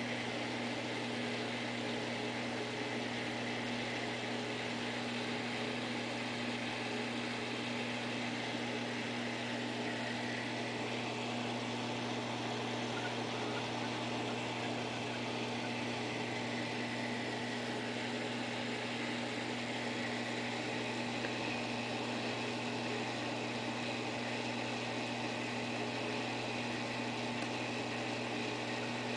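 Steady low electrical hum with a constant hiss over it, from the running pump equipment of a saltwater reef aquarium.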